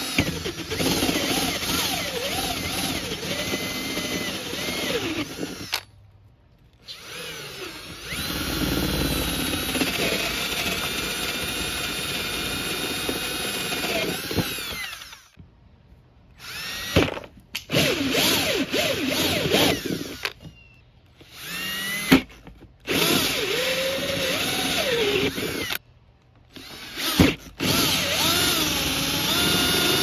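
Cordless drill driving a hole saw through 4-inch PVC pipe, the motor whining in several runs of a few seconds each, stopping and starting between cuts.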